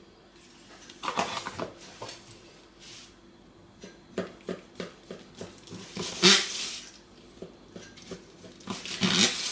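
A table knife cutting through a baked cake, with irregular clicks and scrapes as the blade hits and drags along the base, and a louder scrape about six seconds in and another near the end.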